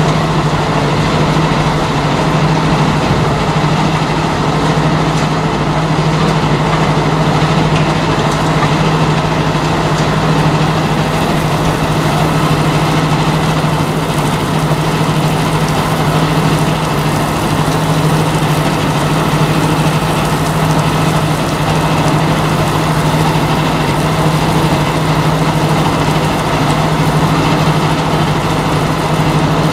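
Mobile rotor crusher running steadily under load: a continuous heavy engine and machinery drone with a constant low hum, as its conveyor carries crushed rubble off the belt end.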